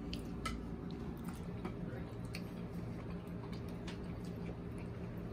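Quiet eating at a table: scattered faint clicks and taps over a steady low hum.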